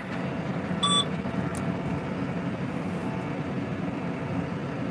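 Farm tractor engine running steadily, heard from inside the cab while driving. A short electronic beep sounds once, about a second in.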